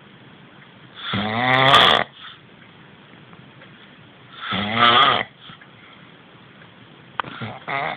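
A man snoring loudly in his sleep: two long snores about three and a half seconds apart, each swelling over about a second, then a fainter, shorter sound near the end.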